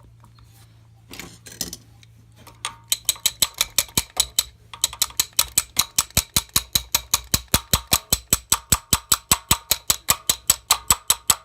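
Rapid, even hammer taps on a steel piston pin push tool, metal on metal with a ringing tone, driving a tight wrist pin out of a Kawasaki KM100's two-stroke piston. About five taps a second, starting about three seconds in, with a short break partway through. A few quiet handling knocks come first.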